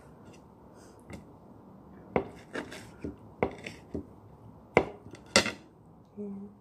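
A small kitchen knife cutting a lemon, its blade knocking about seven times on the hard surface beneath, a few per second, with the last two knocks the loudest.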